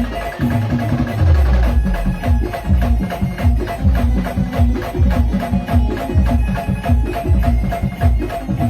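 Instrumental stretch of a song with no singing: a fast, steady percussion beat over a few held notes.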